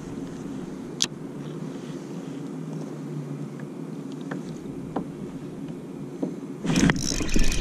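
Steady wind and water noise around a kayak, with a few small sharp clicks from handling a spinning reel and rod, the loudest about a second in. Near the end a loud rush of noise sets in.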